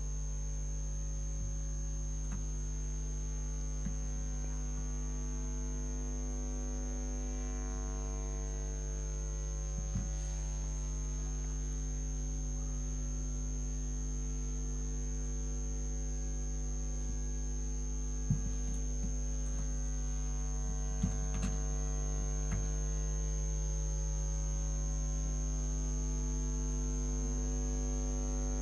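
Steady electrical mains hum with a constant thin high whine above it, and a few faint clicks scattered through it.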